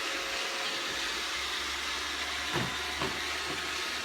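Roomba robot vacuum running with a steady whirring hiss, with two brief thumps about two and a half and three seconds in.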